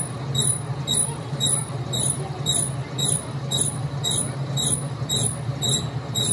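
A steady mechanical hum with a short, high squeak repeating evenly about twice a second, as from a rotating machine running.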